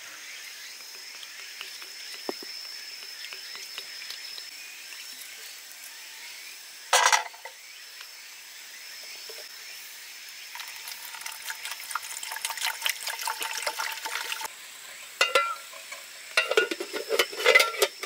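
Water poured from a bottle into an aluminium mess tin holding a few chestnuts, a trickling patter for about four seconds, after a brief splash of water rinsing chestnuts held in the hand about seven seconds in. Near the end, metal clinks and clatter as the mess tin and its lid are handled.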